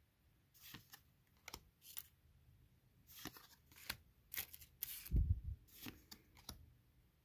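Pokémon trading cards flipped one at a time in the hand, each card slid from the front of the stack to the back with a short papery flick, a dozen or so times at an uneven pace. A louder low thump about five seconds in.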